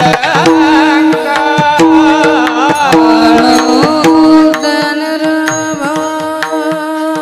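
Indian devotional singing: a high voice drawing out a wavering, ornamented sung phrase over steady held accompanying notes and tabla-like drum strokes, the voice fading after about four seconds while the instruments carry on.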